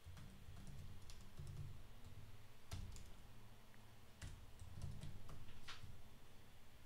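Faint, scattered keystrokes on a computer keyboard as a terminal command is typed, over a low steady hum.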